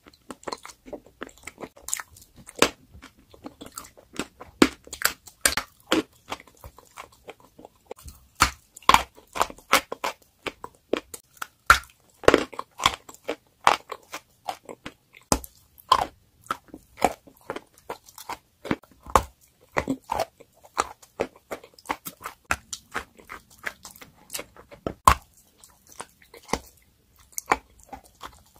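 Biting and chewing a block of pressed chalk: many sharp, irregular crunches and crumbly chewing throughout.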